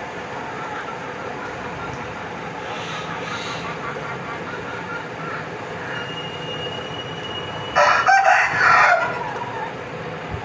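A chicken gives a loud burst of squawking calls lasting about a second, a little under eight seconds in, over a steady rushing background noise.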